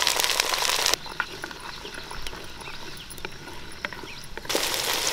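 Shallots and chillies frying in hot oil in a pan, a dense crackling sizzle. The sizzle drops out abruptly about a second in, leaving scattered crackles and faint chirping, then returns abruptly near the end.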